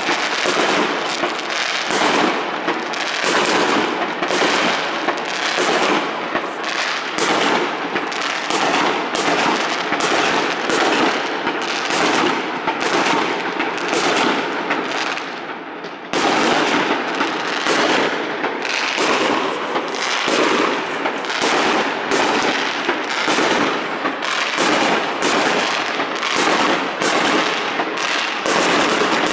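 New Year's fireworks going off in a dense, continuous barrage of overlapping bangs and crackles. The barrage eases a little just before halfway, then comes back abruptly at full strength.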